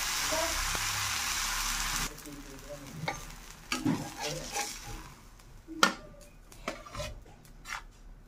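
Uttapam sizzling on a hot tawa, a loud even hiss that cuts off sharply about two seconds in. Then a metal spatula scrapes and knocks against the pan and a steel plate: a handful of sharp clinks, the loudest a little past the middle.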